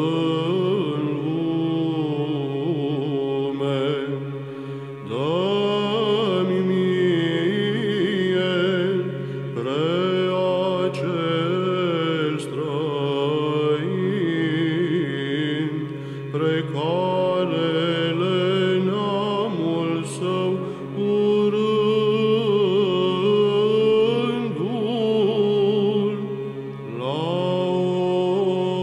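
Romanian Byzantine (psaltic) chant in the fifth tone (plagal first mode): a melismatic sung melody, long syllables drawn out over many notes, above a steady held drone (ison).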